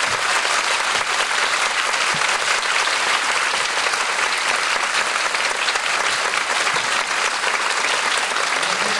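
Theatre audience and cast applauding: a dense, steady clapping that holds even throughout.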